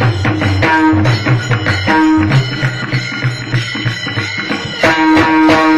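Pakhawaj drum played in a quick, steady rhythm, with ringing pitched strokes over a deep bass. The playing softens for a couple of seconds and comes back louder near the end.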